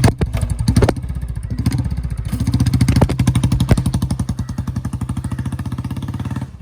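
Royal Enfield Bullet 350's single-cylinder four-stroke engine running with a steady, even exhaust beat, with a few sharp cracks over it. The sound cuts off abruptly at the end.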